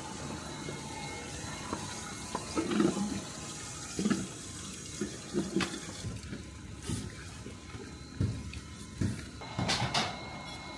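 Running water in a steady wash, with irregular knocks and clatters through the second half.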